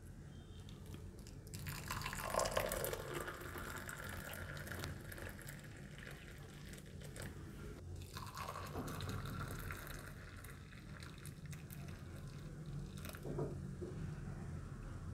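Hot milk poured in a steady splashing stream from a steel vessel into glass mugs over instant coffee powder. It starts about a second and a half in, breaks off briefly about eight seconds in, and runs again into the second mug until near the end.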